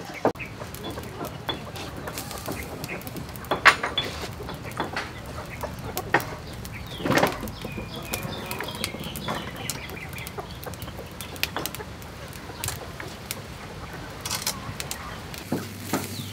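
Chickens clucking, with a few louder calls, over scattered short clicks of metal tongs on a wire grill rack.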